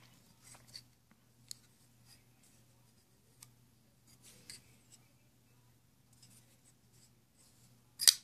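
Rob Douglas flipper knife being handled and flipped: faint rustling of the knife in the hand with a few light metallic clicks, then one loud sharp snap near the end, the loudest sound, as the blade is flicked on its pivot and locks.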